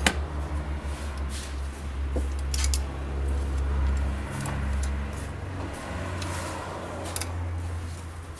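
Scattered light metallic clicks and scrapes of a screwdriver working at the clamp that holds the catalytic converter to the turbocharger outlet, over a steady low rumble that stops near the end.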